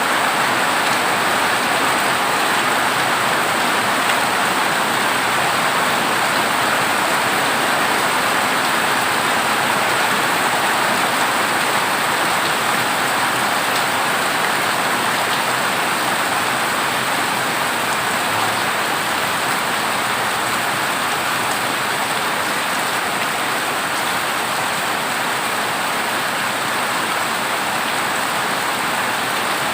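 Heavy rain pouring steadily on a corrugated zinc roof, a dense, even hiss without breaks.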